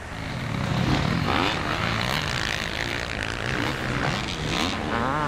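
Yamaha 450 four-stroke motocross bike engine revving hard, its pitch rising and falling repeatedly as the throttle is opened and closed through a run of jumps.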